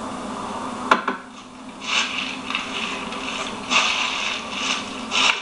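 Close rustling and rubbing of the hunter's clothing against the camera: one sharp click about a second in, then several short rustles over a faint steady low hum.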